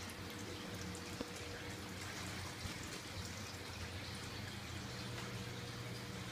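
Water trickling and splashing as it falls from the floating-raft grow beds' overflows into the sump tub below, over a steady low hum. A small click about a second in.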